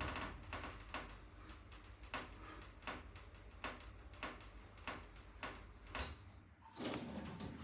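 Passenger lift clicking sharply, about twice a second at uneven spacing. A broader rumbling noise sets in near the end.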